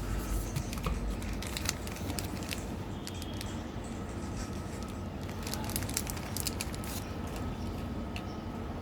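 Close-up eating sounds: crackly chewing with small clicks and squishes from a mouthful of sweets, over a steady low hum.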